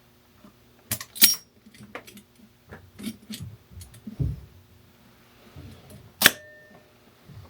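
Galvanized steel pipe fittings knocking and clinking as they are handled and fitted together. There are sharp metallic knocks about a second in and again near the end, each with a brief ring, and softer clunks and a dull thud between them.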